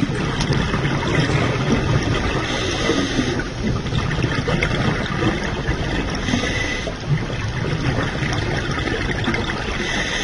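Scuba diver breathing through a regulator underwater: a hiss comes back about every four seconds, with steady bubbling and gurgling between.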